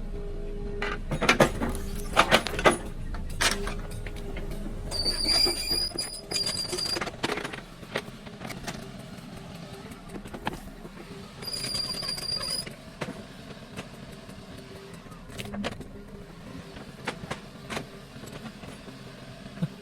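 Excavator working on stones: its engine runs with a steady hum while many sharp knocks and scrapes sound as the bucket meets rock. Two brief high-pitched squeals come about a quarter and about halfway through, and the low engine hum eases after about a third of the way in.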